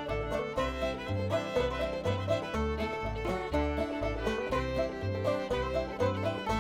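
Bluegrass-style background music with banjo and fiddle over a steady, bouncing bass line.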